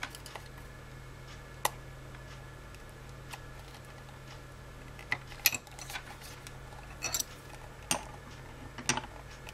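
Thin metal spatula clicking and scraping against the seam of a glued plastic 12 V power adapter case as it is pried open. The clicks are short, sharp and irregular: one about two seconds in, then more and closer together in the second half.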